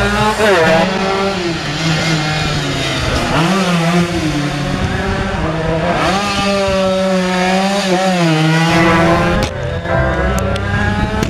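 Two-stroke underbone racing motorcycles running hard past and through a corner, engine pitch rising and falling several times as the bikes rev up, back off and pass.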